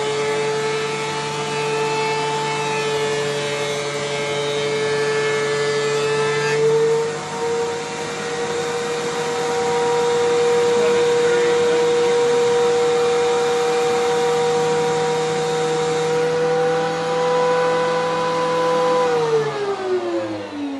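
DeWalt 735 thickness planer and shop vac running with a steady whine. About six seconds in, the board clears the cutterhead and the planer's pitch steps up a little as it runs unloaded. Near the end the machines are switched off and wind down in a falling whine.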